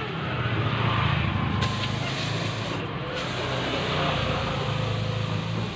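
A motor vehicle engine running with a steady low hum.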